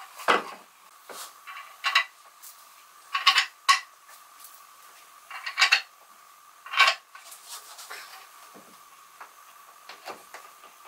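A series of sharp clinks and knocks of hard objects being handled and set down, about seven at uneven spacing, mostly in the first seven seconds. A faint steady hum runs beneath.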